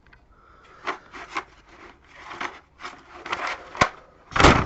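Plastic Scalextric Sport slot-car track pieces being handled and pulled out of a box: a run of rubbing and scraping, with a sharp click a little before the end and the loudest scrape just after it.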